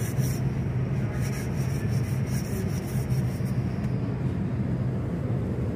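Steady low mechanical hum of shop machinery in an aircraft paint booth, with a faint rapid scratching in the first few seconds from sanding on the airframe.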